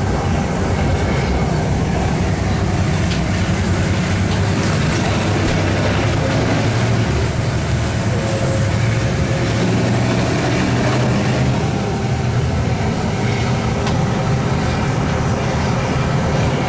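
Clyde-built NZR Da-class diesel-electric locomotive's EMD 567 two-stroke engine working steadily under load on the climb, over the rumble of the carriages on the rails.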